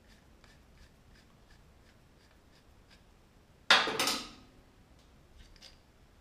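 Hand tools working the pad retaining pin out of a Yamaha XMAX 250 front brake caliper: faint light ticking about four times a second, then a single sharp metallic clank a little past halfway through.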